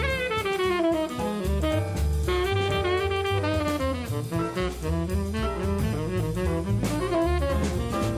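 Upbeat jazz background music: a horn melody over bass notes and a drum kit.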